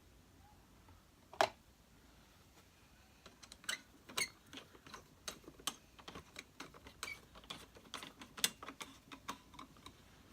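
Parts of a Hoover Senior Ranger U4002 upright vacuum's handle assembly being handled and fitted together. There is one sharp click about a second in, then from about three seconds on a run of irregular small clicks and taps.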